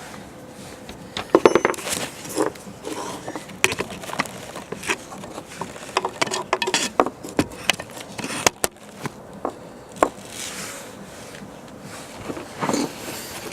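Irregular light clicks and metallic clinks of hand tools and saw parts being handled while a miter saw's blade bolt is tightened with an Allen key.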